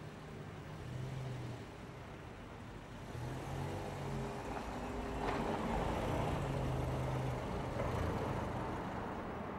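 Mercedes-Benz B-Class car driving slowly up a brick-paved driveway, its engine and tyre noise growing louder as it approaches. There is a brief click about five seconds in.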